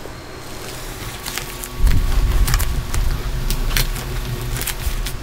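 Close handling noise of an electric drill wrapped in plastic film and fitted with a metal hose clamp: scattered sharp clicks and crinkles, with heavier rubbing and knocking from about two seconds in.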